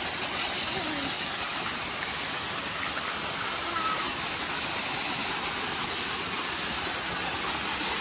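Rushing water: a steady, even hiss that holds the same level throughout.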